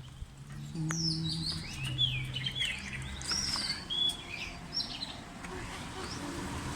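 Wild birds chirping and calling, a run of short quick notes and whistles from about a second in, fading out a little before the end, over a low steady hum in the first few seconds.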